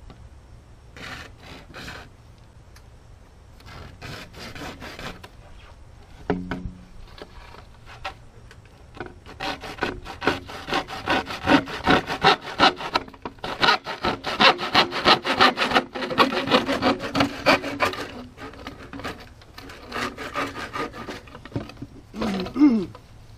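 Hand saw cutting 4-inch drain pipe to length in quick back-and-forth strokes. There are a few short bouts early on, then a long steady run of sawing in the middle, and a brief run near the end.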